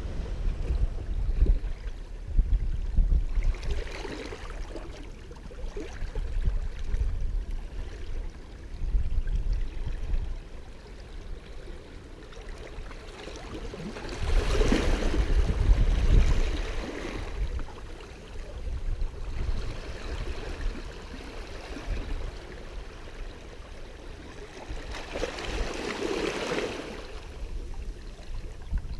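Small waves washing in over granite rocks and cobbles at the water's edge, swelling three times: a few seconds in, more strongly around the middle, and again near the end. Wind rumbles low on the microphone.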